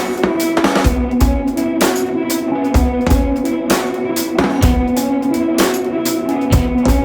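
Music with a steady drum-kit beat over pitched instrumental notes.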